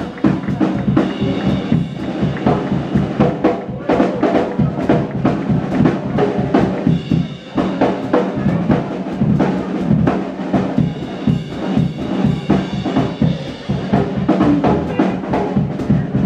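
Live blues band playing an instrumental passage on drum kit, electric guitars and bass guitar, with steady kick and snare hits under the guitars.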